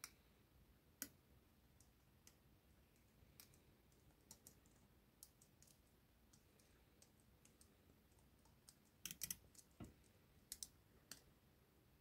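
Faint, scattered metallic clicks of a dimple lock pick working the pins inside an IsraLock dimple padlock, with a quick run of louder clicks about nine seconds in.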